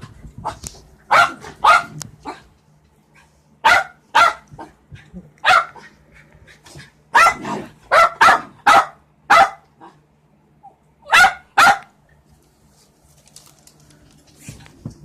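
A dog barking in short, sharp barks that come in bursts of two to five, with pauses between, and a pair near the end.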